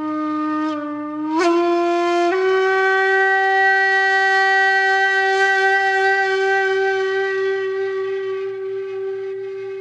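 A single wind instrument playing over the logo end card. Its note bends upward twice in the first couple of seconds, each time with a breathy attack, then settles into one long held tone that slowly fades.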